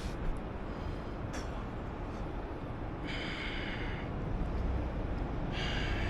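Steady low background rumble, with two short hissing sounds about three seconds in and near the end.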